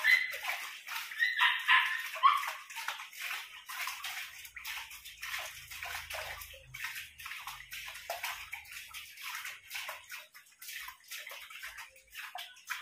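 Clothes being hand-washed in a basin of water: irregular splashing and sloshing as they are rubbed and lifted, with a few short high yelps in the first two seconds.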